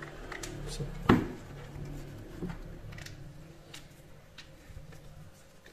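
Handling noise: scattered light clicks and taps of a small screwdriver and plastic parts as a screw is driven into a plastic toy train, with one louder knock about a second in.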